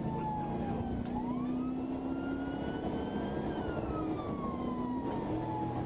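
Police car siren in a slow wail: the pitch falls, climbs again from about a second in, and falls once more near the end. Steady engine and road noise runs underneath.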